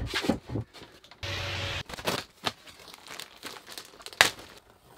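Handling noise from thick foam sheets and their plastic wrapping: crinkling and rustling with scattered knocks, a brief steady hum about a second in, and one sharp click about four seconds in.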